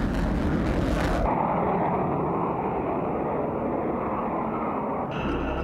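Jet engine noise of a twin-engined Eurofighter 2000 fighter in flight: a steady rush that turns duller about a second in, when the high end drops away.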